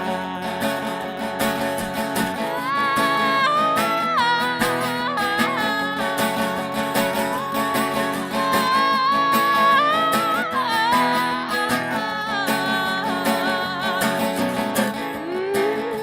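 Live acoustic band music: strummed acoustic guitar under a sustained lead melody that slides and bends between notes, an instrumental passage with no words sung.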